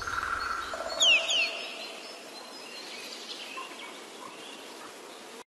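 Outdoor background noise with two quick falling bird-like whistles about a second in, then faint scattered chirps.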